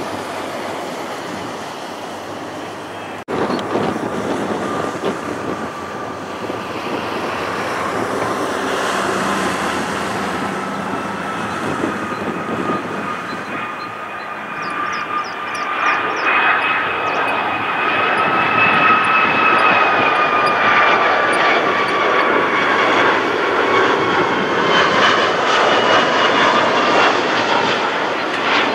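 Rolls-Royce RB211 jet engines of a Boeing 757 on final approach: a steady rumble with a two-toned whine that drifts slightly in pitch, growing louder as the airliner nears. A cut about three seconds in ends the sound of another airliner just touching down.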